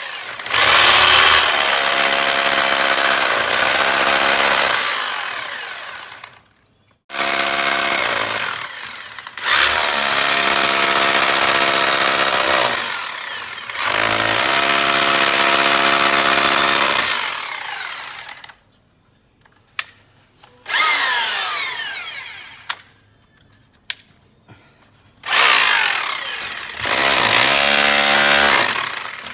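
Electric drill with a long bit boring a ring of holes into a plastered wall, run in about five bursts with short pauses between them. The motor's whine rises at the start of each burst and falls away as it stops. The holes are stitched around a circle so the centre can be knocked out for a cooker hood duct.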